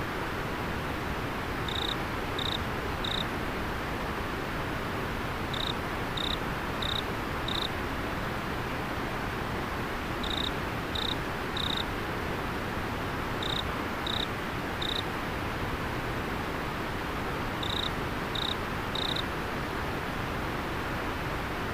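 Steady rush of a flowing river, with a cricket chirping over it in short high-pitched notes, three or four at a time, each group repeating every few seconds.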